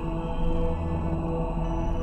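Slow ambient music of sustained, held tones that change only gradually, with a faint thin high steady tone entering near the end.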